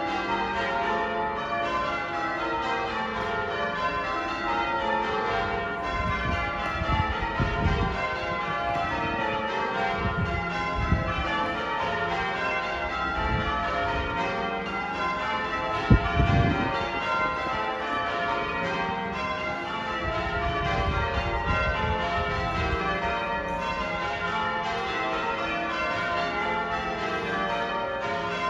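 Cathedral tower bells being rung in changes: a continuous, overlapping pattern of bell strokes. Low rumbles come and go underneath, and there is a short sharp thump about 16 seconds in.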